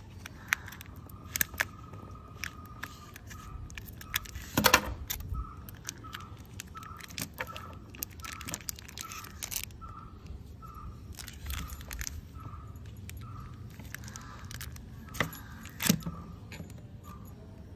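Plastic wrapping of a modelling-clay pack crinkling and crackling as hands handle and open it: irregular sharp crackles, loudest about five seconds in and again near the end. A faint soft note repeats about every three-quarters of a second behind it through the middle.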